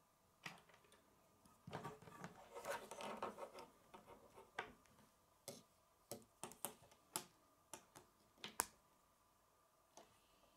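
Plastic K'nex rods and connectors clicking and rattling as they are handled and snapped together, with a spell of rustling handling noise about two seconds in and single sharp clicks after it, the loudest near the end.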